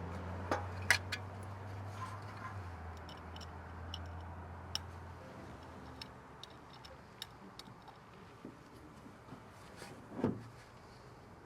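Scattered light clicks and taps of parts and tools being handled, over a low steady hum that fades out about halfway through. Near the end comes one louder brief rustle.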